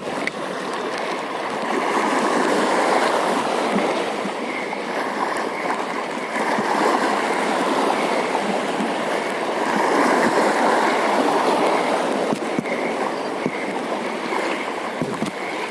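Steady rushing water, swelling and easing every few seconds.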